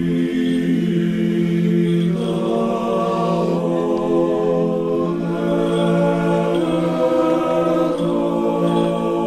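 Choir singing an unaccompanied chant in several voice parts, the lowest part holding one steady note while the upper voices move from note to note.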